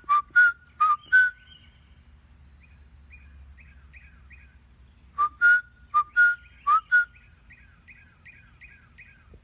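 A man whistles loud, short two-note phrases, and a bird answers each time with a fainter run of quick repeated chirps, about three a second. The exchange happens twice: once at the start and again about five seconds in.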